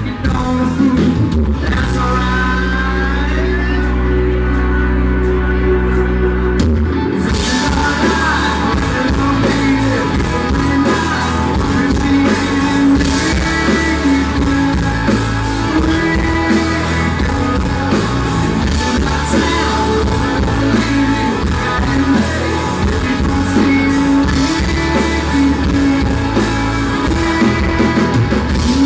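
Live country band playing a song with a male lead singer, heard from the audience. A sparser opening with long held bass notes gives way to the full band, drums and cymbals included, about seven seconds in.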